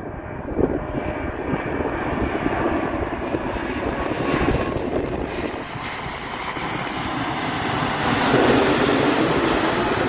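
Boeing 777-200 twin-engine jet airliner on final approach passing low overhead: a broad jet engine noise that builds as it approaches and is loudest just after it has passed, near the end.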